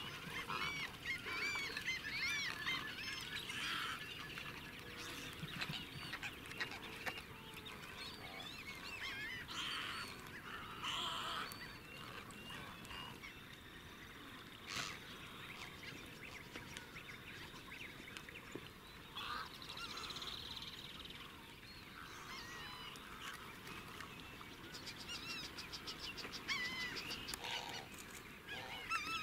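Many wetland birds calling at once in a dense, overlapping chorus of short repeated calls, busiest at the start and again near the end, thinner in between.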